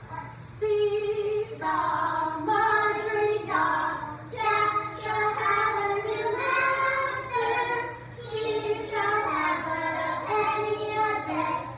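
A class of young children singing a song together in unison, in held notes that change every half-second or so.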